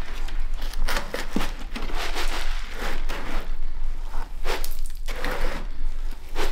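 Akadama bonsai soil crunching and rustling as a plastic scoop digs through the granules and a root mass is pressed down onto them, in a run of irregular scrapes.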